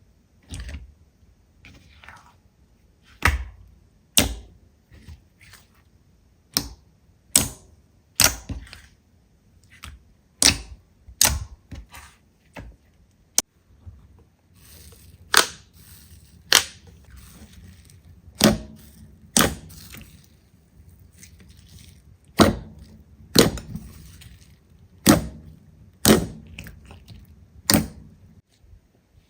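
Slime being pressed and poked, giving sharp pops and clicks about once a second at an irregular pace, with faint soft handling noise between them.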